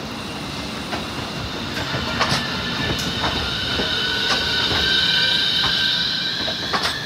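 Okayama Electric Tramway 9200-type tram passing slowly at close range, with a steady high-pitched squeal that swells about five seconds in and scattered sharp clicks of the wheels over the rails.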